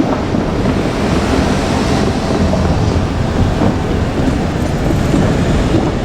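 A train running past close by: a steady, loud rumbling and rushing noise.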